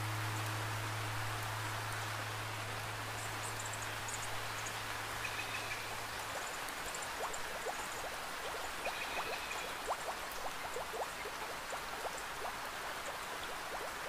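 Steady rain, with many individual drops plinking close by from about halfway through. A low steady hum fades out in the first half.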